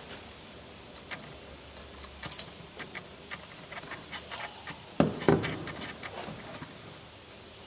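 Hand-tool work on a car's front suspension: scattered light metallic clicks and taps, then two sharp knocks about a third of a second apart, about five seconds in.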